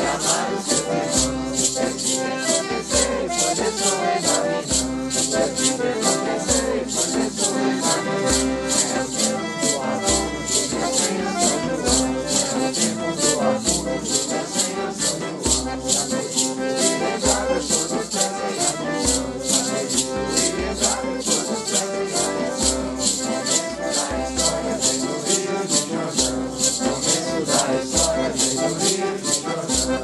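A Santo Daime hymn sung by a group over a steady beat of shaken maracas, with low bass notes under it.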